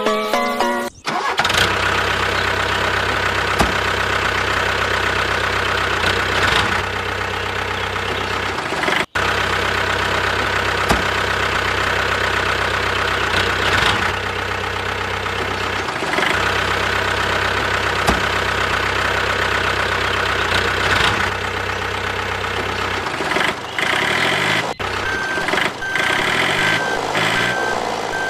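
An engine running steadily with a low, even hum, which fades out about 23 seconds in.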